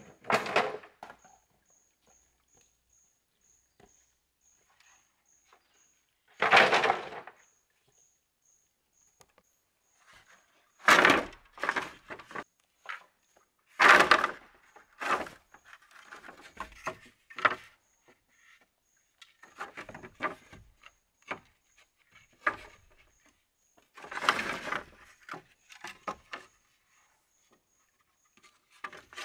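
Bamboo clattering and knocking as split bamboo halves and whole bamboo poles are set down and laid in a row on a wooden frame: a string of separate knocks and rattles, the loudest about half a second in and near 7, 11, 14 and 24 seconds in.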